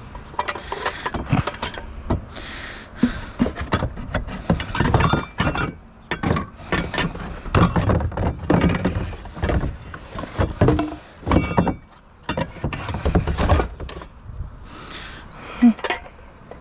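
Pieces of scrap metal clinking and clanking against each other as they are picked out and handled: an uneven run of knocks and rattles with short lulls.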